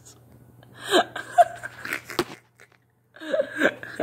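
Close handling noise from a phone's microphone rubbing against clothing and a puppy's fur: scrappy rustling with a few sharp knocks, dropping out briefly past the middle.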